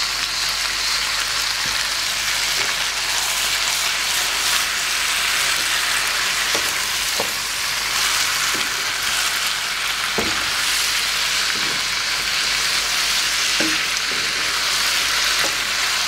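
Chopped eggplant, peppers and potato sizzling steadily in olive oil in a frying pan on high heat, stirred with a wooden spoon, with a few soft knocks of the spoon in the pan.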